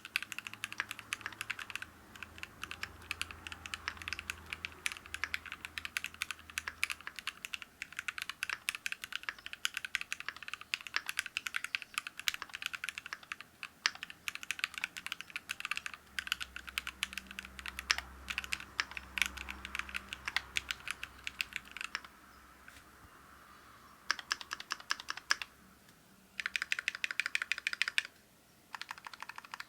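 Typing on a KBDFANS D65 gasket-mount 65% keyboard with a brass plate, lubed and filmed Gateron Black Ink V2 linear switches and thick PBT cherry-profile keycaps: fast, continuous keystrokes. About three-quarters of the way through the typing stops for a couple of seconds, then resumes in short runs.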